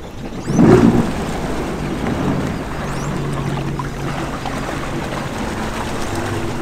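Sea-Doo jet ski engine revving hard about half a second in, then running steadily as the craft pulls away across the water towing its rescue sled.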